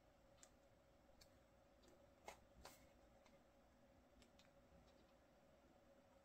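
Near silence with a faint steady hum, broken by a single photobook page being turned by hand: two short paper snaps a little over two seconds in, with a few fainter ticks around them.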